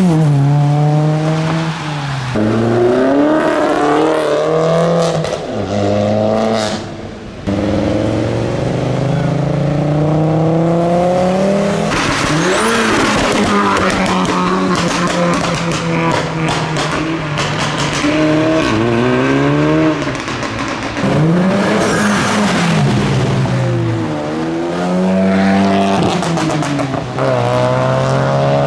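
Several modified cars pulling away and accelerating hard one after another. The engine notes climb and drop again and again as each car revs up and shifts gear, with tyre hiss from the wet road.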